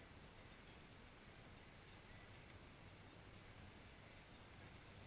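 Near silence: faint outdoor background hiss with a few light, high ticks.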